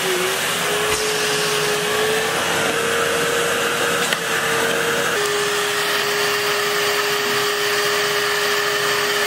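Canister vacuum cleaner running steadily, a motor whine over a rushing noise. Its pitch creeps up slightly, then drops suddenly a little about five seconds in.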